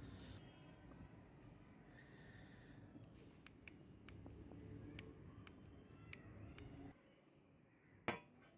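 Faint scattered clicks and taps from handling a DVD player's metal front panel, then a single sharp knock from the bare metal chassis tray on a wooden table near the end.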